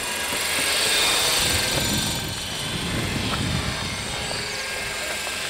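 Radio-controlled model helicopter flying overhead, its rotor and motor giving a steady whine that swells slightly about a second in.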